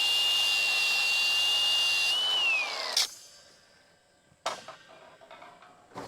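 Power tool, most likely an angle grinder, cutting through steel hog panel wire with a loud steady high whine. About two seconds in the trigger is let go and the whine falls away as the disc spins down, ending in a sharp click about three seconds in; a second sharp click comes about a second and a half later, then light knocks.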